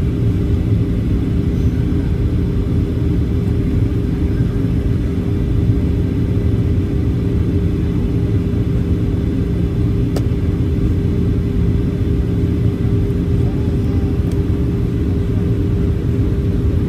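Steady cabin noise inside a Boeing 737-800 airliner in flight: a constant low rumble of engines and airflow with two even hums running through it.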